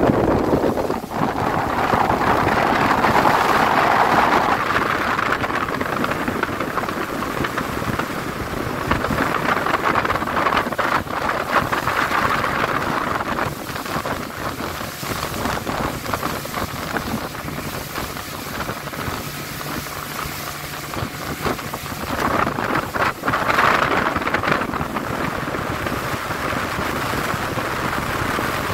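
Small aluminium boat under way: wind rushing over the microphone and water hissing past the hull, with the outboard engine running underneath. There are louder gusts a few seconds in and again near the end.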